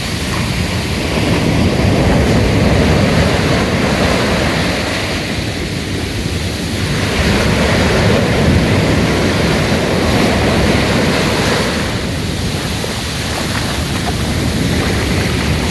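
Ocean surf breaking and washing up the beach, a steady rush that swells and eases several times as waves come in.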